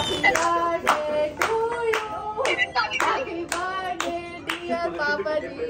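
Several people clapping in time, about two claps a second, while voices, a child's among them, sing along.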